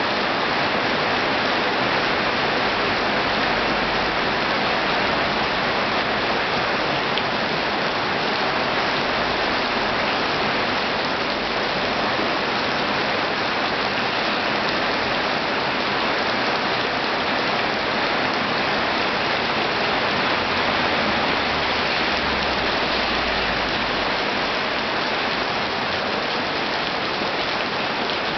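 Heavy rain falling steadily, a dense even hiss of rain on surfaces, ahead of an approaching typhoon.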